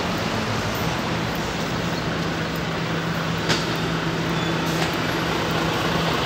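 Street traffic: a steady engine hum over constant road noise, with one short click about halfway through.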